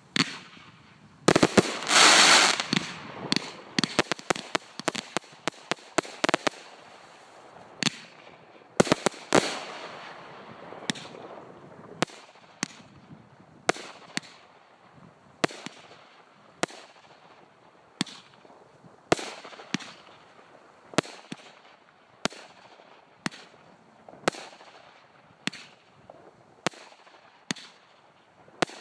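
Cosmic 'Flaming Phoenix' multi-shot firework cake firing. Near the start comes a quick volley of bangs with a loud hissing burst, then shots pop one after another at about one to two a second, each followed by a short hiss.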